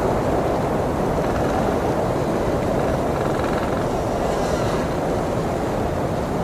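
Snowstorm wind blowing steadily, a dense, even rushing noise without a break.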